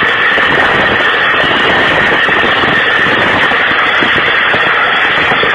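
A machine engine running steadily, with a continuous high-pitched whine over it.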